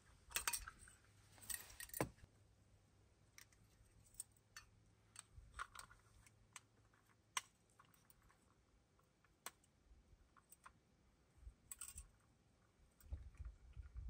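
Faint, scattered clicks and light handling noises of a small metal candle lantern being worked by hand and hung up, with a few louder clicks in the first two seconds and sparse single ticks after.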